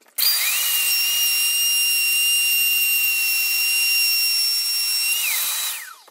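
Plunge router cutting a groove in a melamine-faced chipboard cabinet top: the motor starts with a rising whine, runs steadily at a high pitch for about five seconds, then spins down with a falling whine near the end.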